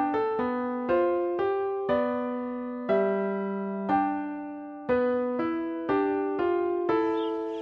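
Background music: a gentle piano melody, single notes struck about once or twice a second, each ringing and fading.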